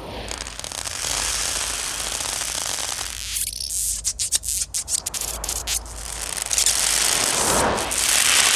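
Glitchy electronic film sound effect: a dense hissing rush that breaks into a fast run of stuttering cut-offs about three and a half seconds in, then swells into another rushing surge near the end.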